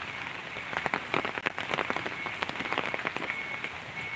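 Rain falling, with many irregular sharp drop hits close by.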